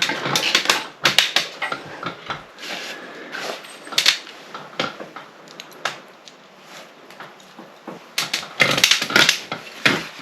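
Irregular clicks, taps and knocks, hard parts and tools being handled while a shelf bracket is fitted, with busier clusters at the start and again near the end.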